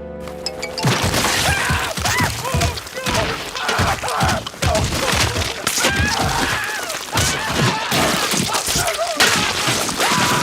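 Cartoon soundtrack of high, squeaky character vocalizing over repeated thuds and crashing impacts, after a brief held tone at the start.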